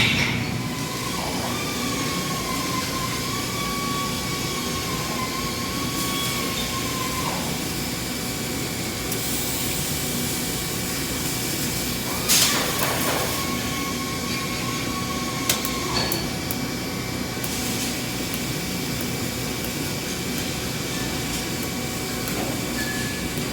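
Steady mechanical whir with a held high tone that comes in and cuts off twice, the first time for about six seconds, the second for about three. There is a sharp, loud burst a little past halfway.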